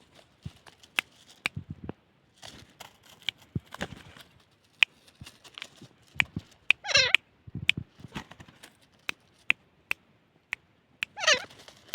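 Francolin (teetar) giving two short wavering calls that slide down in pitch, about seven seconds in and near the end, amid scattered sharp ticks.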